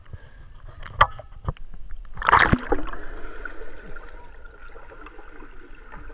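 Action camera in its waterproof housing at the waterline: water slaps against the case twice, a loud splash comes a little over two seconds in, and then the sound turns to a muffled underwater gurgle as the camera is submerged.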